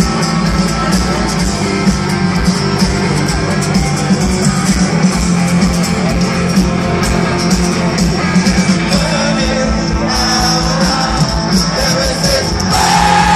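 Live rock band playing loudly on electric guitar and drum kit, with steady drum hits throughout; the music grows louder near the end.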